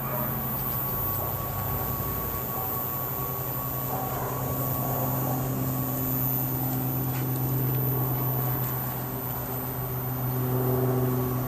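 Steady low mechanical hum with a few held tones above it, from a machine running continuously.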